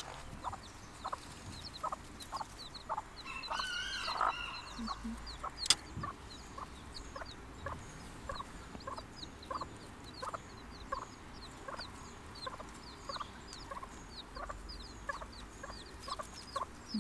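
Bantam mother hen clucking steadily to her chicks, about two short clucks a second, with the chicks' high peeping over it. A louder drawn-out call comes about four seconds in, and a single sharp click about six seconds in.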